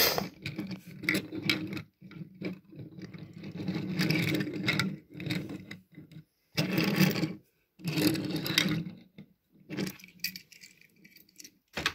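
Die-cast metal toy cars being handled and moved on a wooden table, scraping and clinking in several irregular bursts with short pauses between them.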